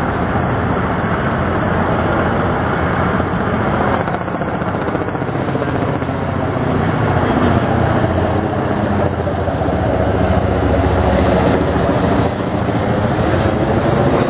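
Helicopter flying overhead, its rotor chop over a steady outdoor din that grows somewhat louder in the middle.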